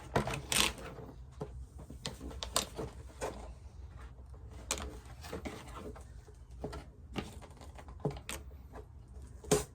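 Irregular clicks and crackles of paper and cardboard being handled, as the glued-on tongue of a shoebox puppet is pulled at. A sharper crackle comes near the end.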